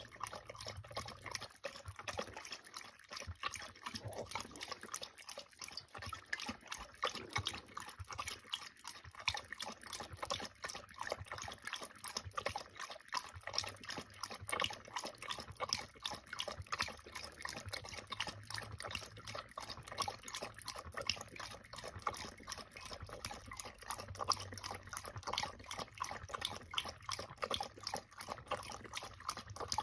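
Dog lapping water from a stainless steel bowl: quick, steady, repeated wet laps and splashes of the tongue against the water and the metal bowl.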